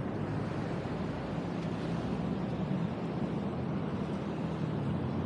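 Off-road vehicle engine running steadily while driving along the beach: a constant low hum under a hiss of wind.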